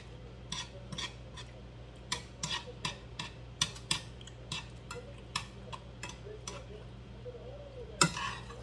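Long metal chopsticks tapping and scraping against the inside of a nonstick pot, picking at the last few noodles. The taps are irregular sharp clicks, with one louder clack about eight seconds in.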